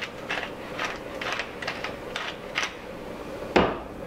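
Wooden pepper mill being twisted by hand, grinding peppercorns in a run of short crunches about two a second, then stopping. A single sharp knock follows near the end.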